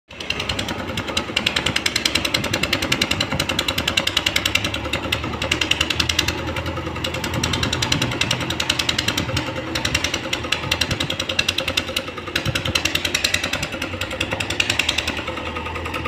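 JCB 3DX backhoe loader's diesel engine running under load with a fast, even clatter.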